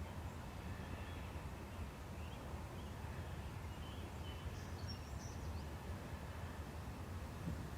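Steady low outdoor background rumble, with a few faint bird chirps about two to five seconds in.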